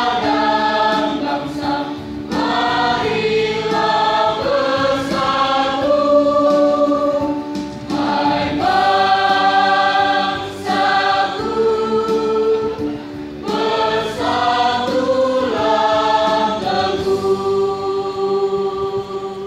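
Large mixed choir of boys and girls singing together in sustained, held notes, ending the song on a long held note near the end.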